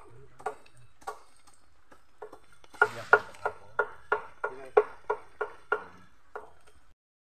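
Knives chopping cassava on a wooden board: a few scattered chops, then a quicker run of about three sharp chops a second. The sound cuts off suddenly near the end.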